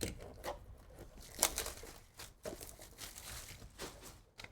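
Wrapper of a trading-card pack being torn open and crinkled by hand: a series of short, sharp crackles, the loudest about one and a half seconds in.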